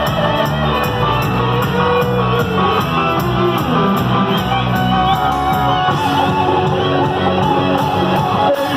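Cuarteto band music in an instrumental passage between sung verses: a steady dance beat with plucked and keyboard melody lines, no voice singing.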